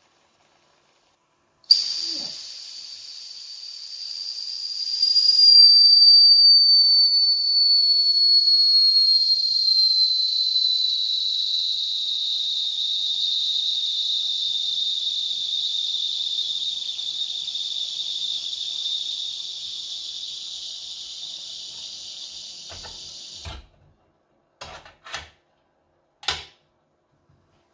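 Steam whistle on a Wilesco D16el toy steam engine's boiler, blown continuously for about twenty seconds, its pitch sliding slowly downward before it cuts off abruptly. A few light knocks and clicks follow near the end.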